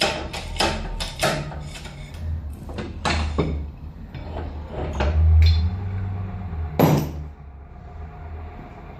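Hammer blows on metal: a quick run of strikes about three a second at first, then a few spaced strikes, the loudest one near seven seconds leaving a short ring, over a steady low hum.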